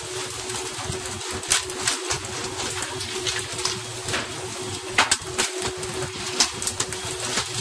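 Steady rush of water along the hull of a moving fishing boat, with a steady engine hum underneath and irregular sharp slaps and thuds as tuna, flung in on pole-and-line rods, land on the deck, the loudest about five seconds in.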